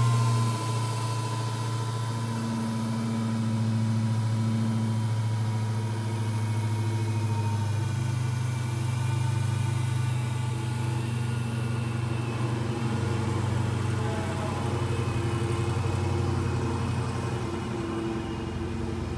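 Dodge Charger Hellcat's supercharged 6.2-litre Hemi V8 idling just after being started, its idle easing down a little as it settles. It runs smoothly with no knocking, a good sign after the engine lost all its oil through a burst oil cooler.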